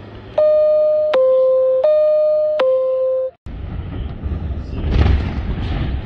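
Loud electronic two-tone alarm alternating between a higher and a lower tone about every three quarters of a second. It cuts off abruptly after about three seconds, giving way to outdoor noise with a low rumble.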